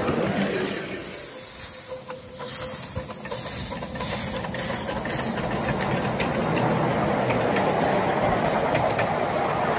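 Miniature steam locomotive working past, its exhaust beats chuffing with a hiss about twice a second. Behind them, the rumble of the wheels and carriages on the track grows as the coaches roll by.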